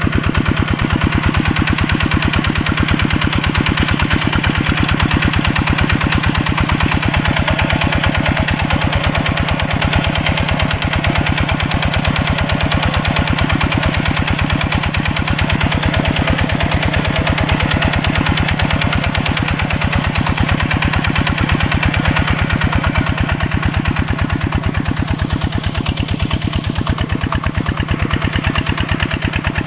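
Mini tractor's single-cylinder diesel engine running steadily with a rapid, even chugging beat.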